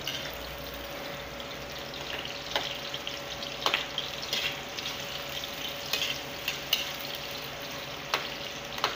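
Sliced onions and garlic sizzling in hot oil in a metal wok, stirred with a metal spoon that clinks and scrapes against the pan now and then. A faint steady hum runs underneath.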